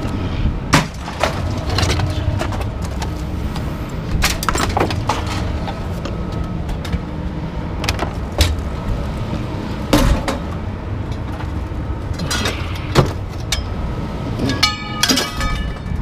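Scattered metal clinks and knocks from hand work on scrap, with a quick run of ticks near the end, over a steady low rumble.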